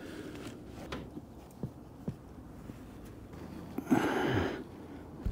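Quiet work handling noise with a few light taps, then a man's short grunt about four seconds in.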